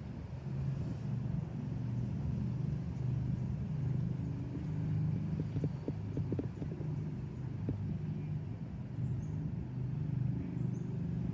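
A low, steady engine rumble, with a few short knocks about halfway through.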